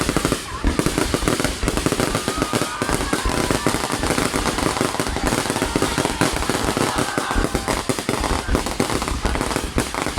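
Fireworks display going off in a rapid, unbroken volley of bangs and crackles, many reports a second with no pause.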